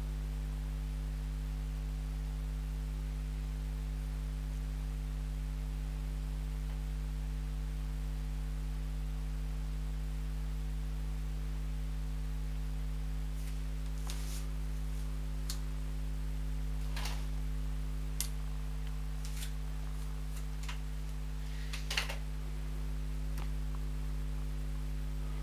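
Steady low electrical hum with a handful of faint, short clicks and ticks in the second half, the sharpest a little before the end.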